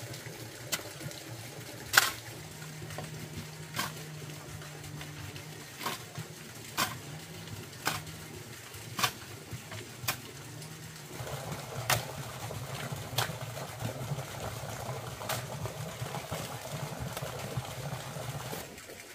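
Sharp knocks repeating irregularly about once a second, over a low steady hum that turns rougher about eleven seconds in and stops shortly before the end.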